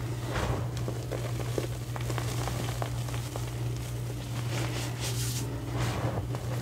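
Hands digging into and squeezing loose powdered gym chalk: soft crunching swishes with small crackles, loudest about half a second in and again about five to six seconds in, over a steady low hum.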